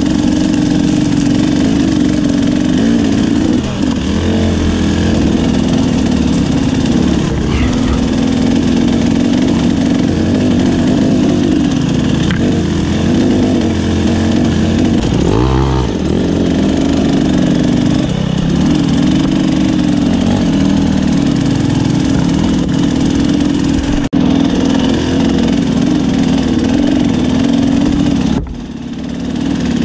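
Dirt bike engine, a KTM 300 two-stroke, running at low to moderate revs on a slow trail ride. The throttle is worked on and off, so the pitch keeps wavering, with a quick rev up and down about halfway through and a brief drop in revs near the end.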